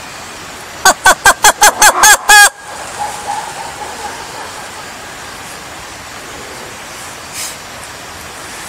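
Black-and-white ruffed lemur calling: a run of about eight loud, harsh pitched pulses, about five a second, quickening and ending in one longer, wavering cry, about a second in.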